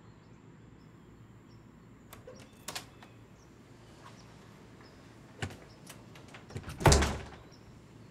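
Soft footsteps and small knocks in a quiet house, with one louder thud from a door about seven seconds in.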